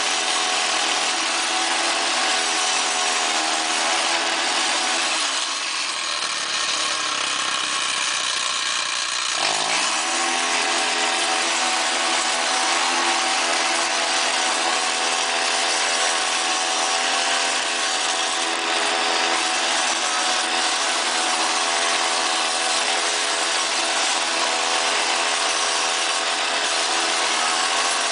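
Small petrol engine of a walk-behind machine running steadily. Around five seconds in the engine note drops and roughens, then it revs back up about ten seconds in and runs on steadily.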